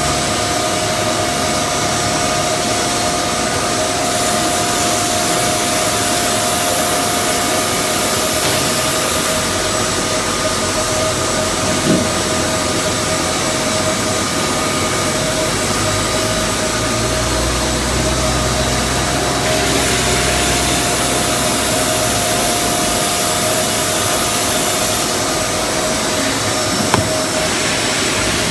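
Semi-automatic HPL laminate cutting line running: a steady machine whine over a loud rushing noise. A harsher high hiss comes in twice for about five seconds each, and there are two short knocks.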